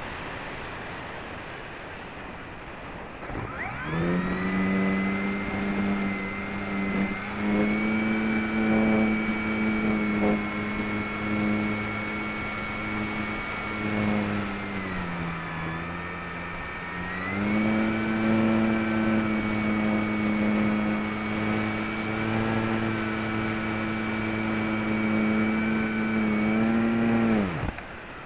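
HobbyKing Walrus glider's electric motor and propeller running under power, picked up by the wing-mounted camera: a steady, high, whining hum that starts a few seconds in, sags lower in pitch about halfway, comes back up, and cuts off just before the end. Wind rushes over the microphone before the motor starts and after it stops.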